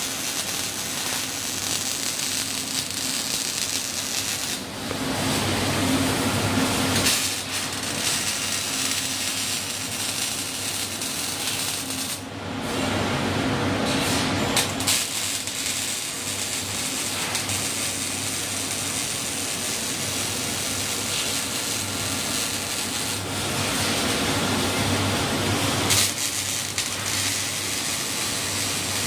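Robotic arc welding on steel rectangular pipe: a steady sizzling, crackling arc whose sound shifts every few seconds.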